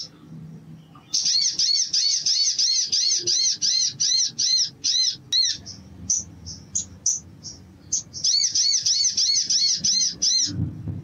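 Male olive-backed sunbird singing: two long runs of fast, evenly repeated arched chirps, about four a second, with a few scattered single notes between the runs.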